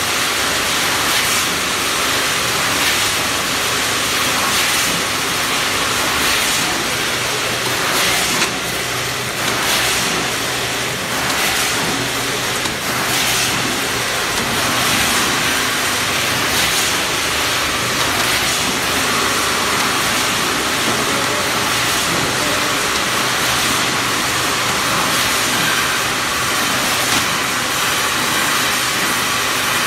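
Packaging line running: steady machine noise of a vertical form-fill-seal packing machine fed by a multihead weigher, with a low hum and a short sound repeating about every one and a half to two seconds as it works through its bagging cycle.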